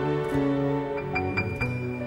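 Soft background music: held notes over a slow bass line, with short, light high notes joining in about a second in.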